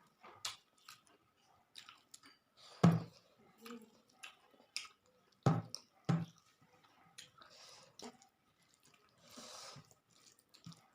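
A person chewing a mouthful of rice and curry close to the microphone: irregular wet mouth clicks and smacks, a few of them louder, with soft breathy smears in between.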